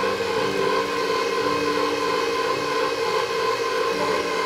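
Electric motor of a KitchenAid Professional HD stand mixer running steadily, its dough hook kneading steamed glutinous rice into mochi, with a low pitch in it that shifts every second or so.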